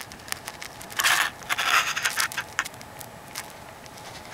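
Close scraping and rustling with scattered sharp clicks, loudest from about one second in to just under three seconds.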